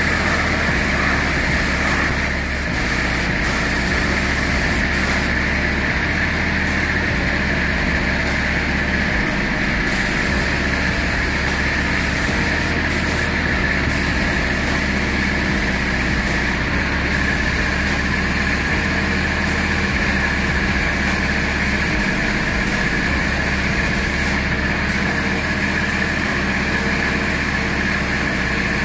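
Steady, unbroken drone of a small air compressor running to feed a gravity-feed spray gun, with the gun's air hissing as it sprays paint.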